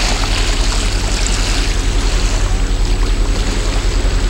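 Catamaran underway: a steady low motor drone with an even fast pulse, under a constant rush of water along the hull.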